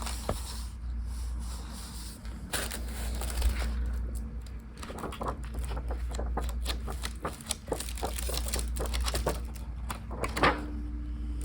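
Handling noises: paper and packaging rustling, with irregular light clicks and taps as items are picked up and looked over.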